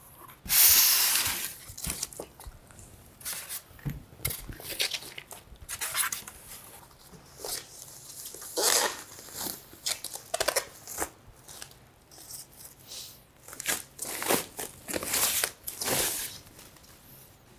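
Plastic packaging bag and styrofoam packing rustling and crinkling in irregular bursts as a monitor is unpacked, the longest and loudest rustle about half a second in.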